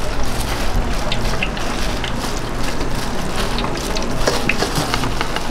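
Food sizzling as it cooks: a steady hiss with scattered small crackles and pops.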